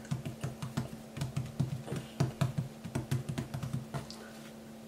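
Fingertips patting and pressing bread dough flat on a floured worktop: quick, uneven soft taps, several a second, easing off near the end.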